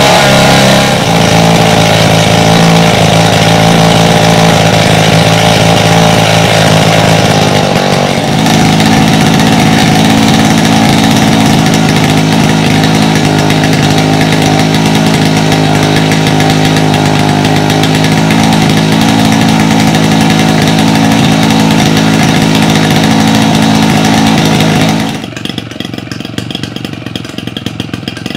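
A 150cc twin-cylinder gasoline engine on a large-scale model Cessna running loudly and steadily, with its spinning propeller, the note shifting about eight seconds in. Near the end it drops to a much quieter, uneven idle.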